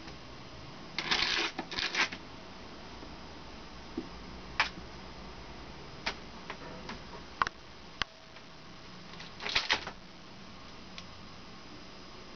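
A rabbit pawing and scratching at a cardboard box: two short bouts of scratchy rustling, one near the start and one near the end, with a few single sharp clicks between them.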